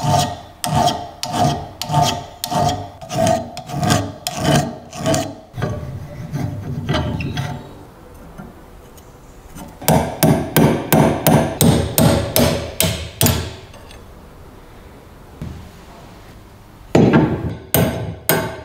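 A flat steel tool scraping inside a rusty cast-iron grain mill housing in regular strokes, about two a second, each with a metallic ring. Then a quicker run of hammer blows on the cast-iron mill body, about three a second, and a few more blows near the end.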